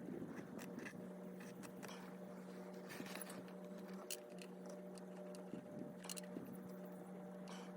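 A steady machine hum with scattered small clicks and scrapes of handling.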